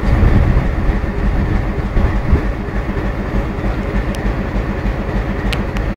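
Coaches of an Indian express train rolling past at speed: a steady heavy rumble with wheels clattering over the rail joints, and a few sharp clicks near the end.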